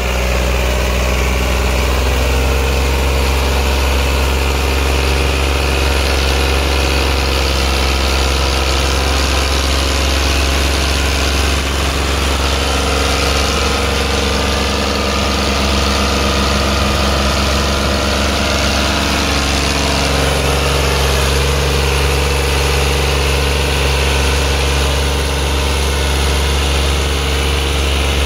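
Al-Ghazi 65 hp tractor's diesel engine running steadily under heavy load as it pulls a loaded sugarcane trolley, its note shifting about twelve seconds in and again about twenty seconds in.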